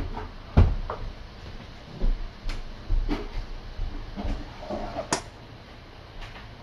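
Kittens playing on the floor, giving irregular soft knocks and thumps with some rustling, and a sharp click about five seconds in.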